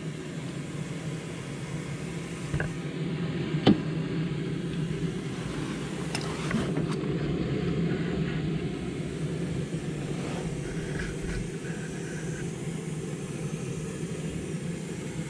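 A steady low mechanical hum, with a sharp click about four seconds in and a few lighter knocks.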